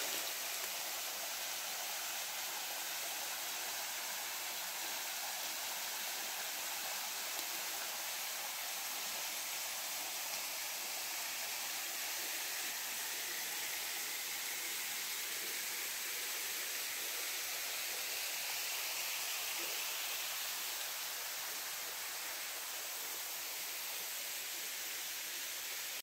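Waterfall splashing into its pool: a steady rushing hiss with no breaks.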